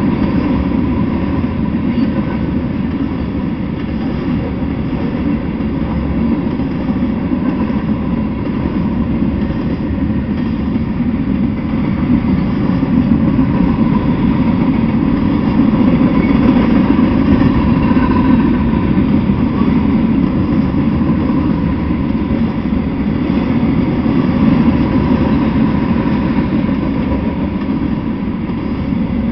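Freight train cars rolling past on the rails: a steady, loud rumble of boxcars and covered hoppers going by.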